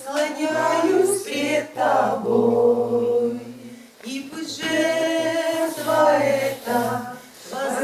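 Several voices singing a slow Russian-language worship song together, in two long held phrases with a short breath between them about four seconds in.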